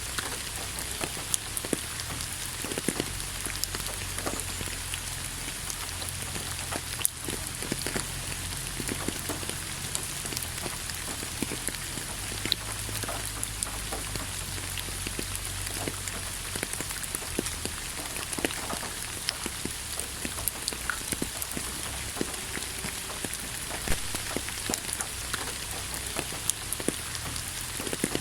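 Steady rain falling on a surface: an even hiss with many scattered sharp drop impacts over a low rumble.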